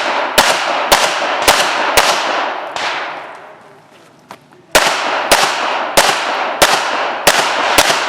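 Pistol shots fired in quick strings about half a second apart, each with a long fading tail: four shots, a pause of nearly three seconds with a faint click, then six more.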